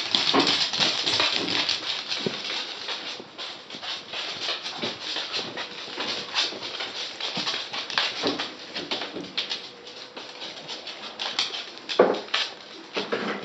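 West Highland white terrier puppies scrambling and play-biting on a hardwood floor: a busy, uneven patter of small claws clicking and scratching on the wood. A few louder short sounds break in, the loudest about twelve seconds in.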